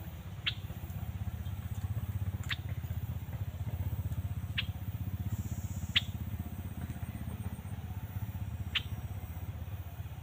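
A bird giving short, sharp call notes that sweep quickly downward, five of them spaced a second and a half to three seconds apart, over a steady low rumble.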